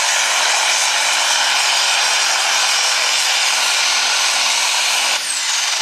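Turbocharged diesel engine of a John Deere pulling tractor running flat out under full load, loud and steady, while pulling the sled. About five seconds in it throttles back and a high whistle falls in pitch as the engine winds down.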